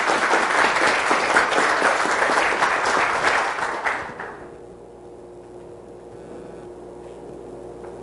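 Audience applauding; the clapping dies away about four seconds in, leaving a steady low room hum.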